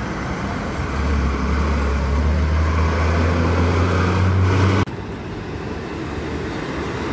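A diesel truck passing close by, its engine a steady low drone that grows louder about a second in. Just before the end it cuts off abruptly to the more even noise of road traffic as another truck approaches.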